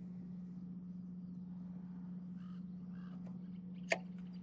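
Two or three faint bird calls about two and a half seconds in, over a steady low hum, with one sharp click near the end.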